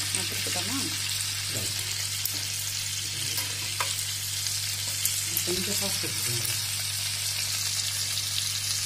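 Tandoori-marinated chicken drumsticks sizzling steadily as they shallow-fry in oil and butter in a cast-iron skillet, while they are turned over in the pan.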